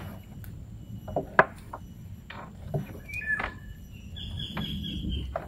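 Sharp knocks and clicks as a crab net is hauled hand over hand into a small boat, the loudest about one and a half seconds in. A short high bird call sounds about three seconds in.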